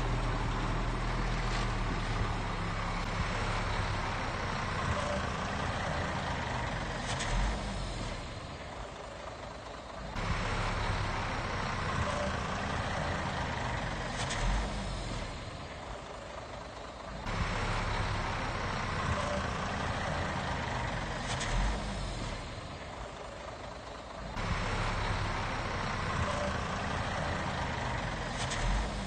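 Shantui bulldozer's diesel engine working in a repeating cycle about every seven seconds: a loud stretch under load ending in a short knock, then a quieter dip of two or three seconds before the engine picks up again.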